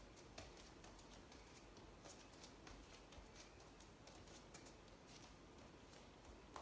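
Near silence with faint, irregular light taps and scuffs: bare feet stepping on a wooden floor during bachata dance steps.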